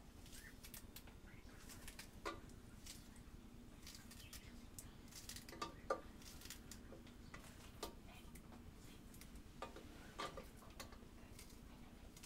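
Faint, scattered clicks and taps of a kitchen knife slicing a green onion held in the hand over a metal pot, with a few sharper taps about two, six and ten seconds in.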